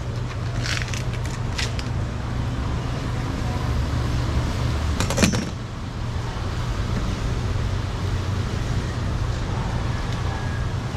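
Steady low rumble of background noise, over which a block of bluefin tuna is handled on a wooden cutting board: a few light clicks in the first two seconds and one sharp knock about five seconds in.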